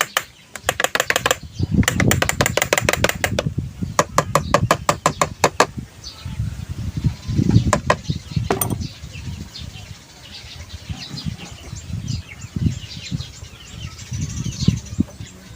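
Three runs of rapid clicking in the first six seconds, then birds chirping in the background over low knocks and rumbles.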